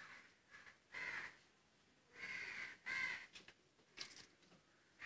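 A crow cawing faintly, a few short caws spaced about a second apart.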